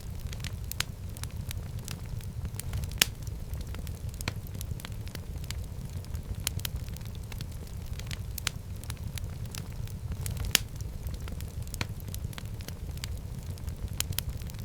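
Wood fire burning in a fireplace, crackling and popping irregularly over a steady low rumble of the flames, with two louder pops, one about three seconds in and one near ten seconds in.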